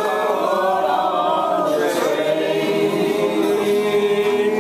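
Group of people singing together in unison to a strummed acoustic guitar, holding one long note through the second half.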